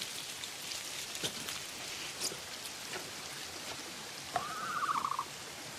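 Steady heavy rain pattering. About four seconds in, a short warbling high-pitched call sounds over it.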